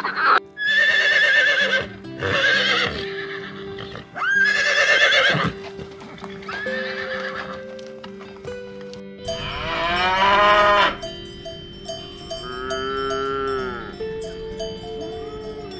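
Farm animals calling: a run of quavering, bleat-like calls, with two longer calls that rise and fall near the end, over soft background music.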